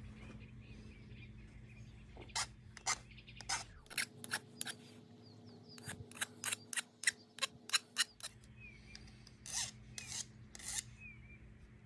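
Hand file rasping across the pipe-cutter-cut end of a piece of metal conduit, taking off the burrs and beveling the edge. A run of short strokes begins about two seconds in, quickens to about three a second in the middle, and ends with a few slower strokes.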